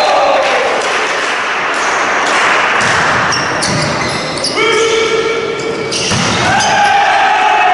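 Spectators in a large sports hall cheering and shouting through a volleyball rally, with loud held calls (one falling at the start, one held level about halfway through) and occasional ball thuds.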